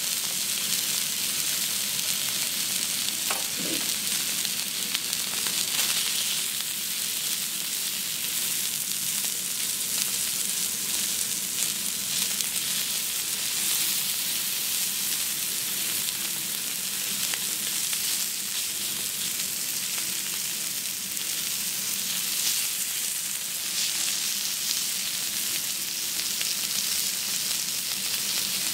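Wagyu steak pieces sizzling steadily on a hot teppanyaki steel griddle, with occasional faint ticks.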